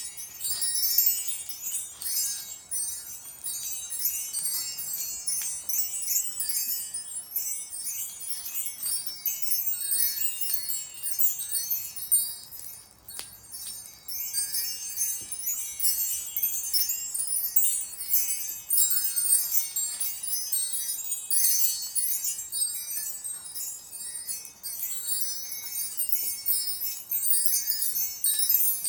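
Chimes tinkling continuously, with many small high metallic notes struck and ringing over one another.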